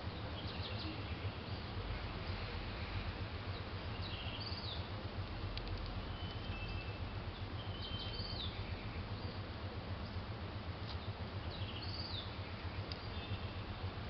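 Small songbirds chirping: short, high chirps that come a few at a time every couple of seconds, over a steady low background rumble.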